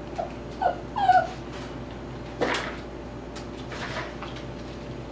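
Tibetan Terrier puppy giving three short, high whimpers in quick succession, the third the loudest. About two and a half seconds in comes a brief noisy sound, with a fainter one a second or so later.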